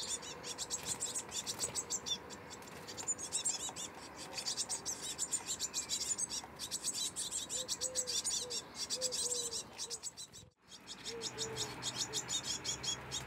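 Blue tits calling, a fast run of high-pitched chirps repeated many times a second. A few short low notes sound in the background, and the sound drops out for a moment about ten seconds in before the chirping resumes.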